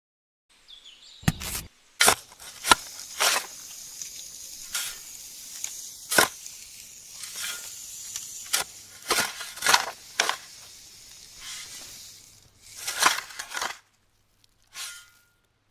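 Irregular sharp clicks, taps and scrapes of small parts and materials being handled, over a faint steady hiss, with a quick cluster of clicks near the end.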